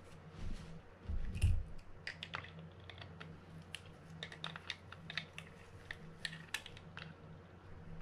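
Light, scattered clicks and taps of small metal tools and reel parts being handled, as an adjustable wrench is picked up and set onto the centre shaft nut of a Mitchell 302 spinning reel.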